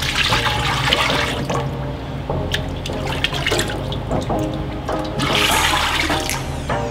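Thick liquid pottery glaze being poured from a plastic pitcher into the inside of a large bisque-fired pot, splashing and rushing in two pours: one at the start and another about five seconds in, with a scoop from the glaze bucket between them. Background music plays under it.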